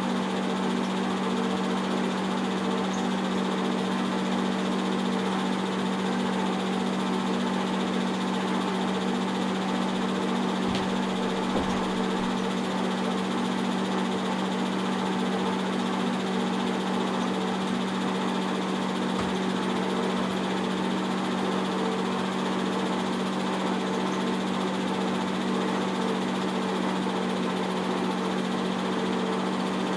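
A 70-year-old 8 mm film projector running: a steady motor-and-fan hum with a strong low tone over an even mechanical whirr.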